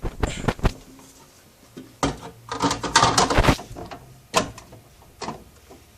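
Handling noises: a few sharp knocks, then a dense run of clicking and rattling about two seconds in, and two more single knocks later.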